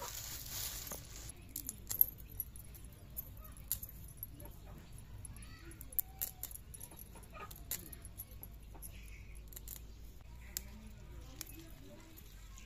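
Plastic bag crinkling in the first second, then scattered sharp clicks and scrapes of a curved knife blade scraping the scales off a rohu fish.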